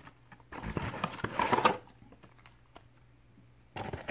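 Wrapped trading-card packs rustling and crinkling as they are handled and set down on a table. The handling comes in two spells, from about half a second in and again near the end, with a few faint clicks between.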